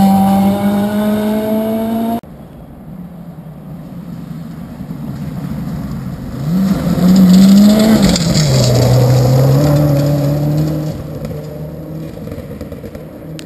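Rally car engines on a gravel stage. The first revs hard, climbing in pitch, then cuts off suddenly about two seconds in. A second car is then heard approaching, its engine rising and dropping through a gear change as it goes by loudly, then fading away.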